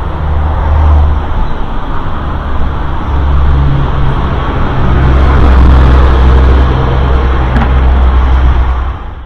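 Strong wind buffeting the microphone: a loud, uneven low rumble that surges and eases in gusts, with a hiss above it.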